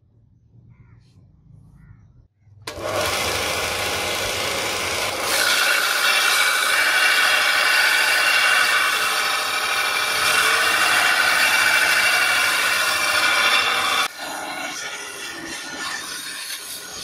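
Belt grinder grinding the bevel on a steel blade: a harsh, steady grind with a whine in it. It starts suddenly about three seconds in, grows louder a couple of seconds later, and drops to a quieter grind near the end.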